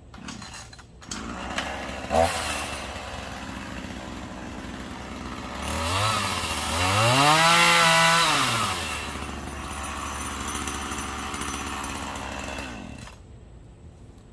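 Two-stroke chainsaw starting up about two seconds in and idling, then revved up once and let back down, idling again before it cuts off suddenly near the end.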